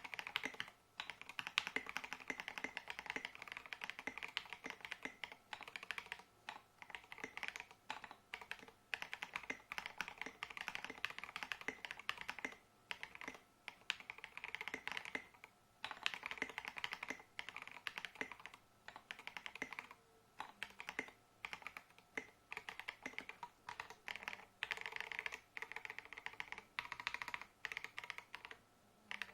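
Typing on a KBDfans KBD67 Lite mechanical keyboard with stock, unlubed JWK red linear switches and SA profile keycaps: rapid runs of keystrokes with short pauses between bursts.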